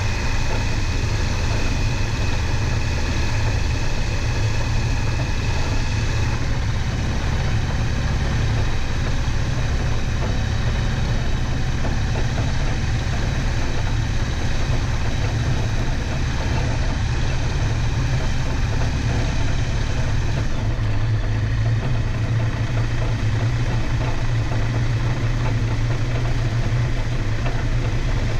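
Aeroprakt A22 light aircraft's engine and propeller running steadily at low power as it taxis, heard close up from under the wing. The engine note shifts slightly about two-thirds of the way through.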